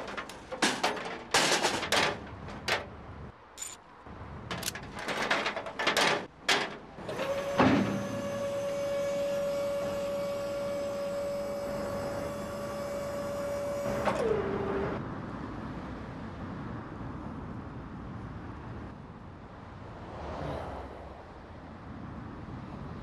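A car transporter being unloaded: a series of sharp metal clanks and knocks, then the transporter's hydraulic deck pump runs with a steady whine for about six seconds, dropping in pitch as it stops.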